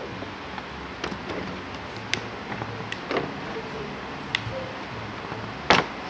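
Small clicks and knocks from makeup items being handled and set down on a table, a few scattered light ones and a louder knock near the end.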